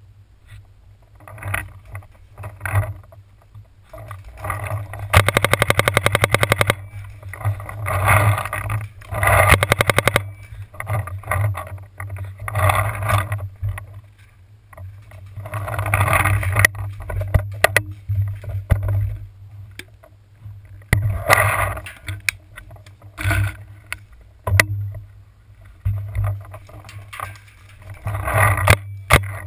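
Handling noise from a camera mounted on a paintball marker: scraping and rustling as the gun is moved against tree bark and brush, loudest in a rapid rasping burst about five seconds in, with a steady low hum throughout and several single sharp clicks in the second half.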